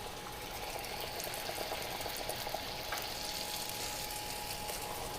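Strips of Chinese long donut dough deep-frying in hot oil: a steady, dense bubbling and crackling.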